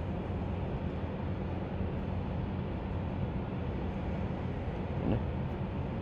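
Steady low mechanical hum with an even rumbling background noise and no distinct events.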